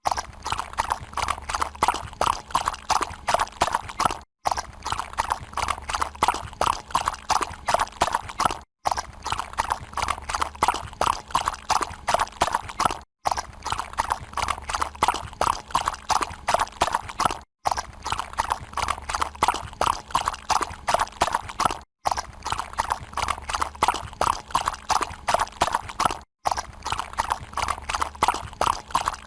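Horse hooves clip-clopping on a hard surface in a fast, even rhythm, with a brief drop-out about every four and a half seconds where the recording repeats.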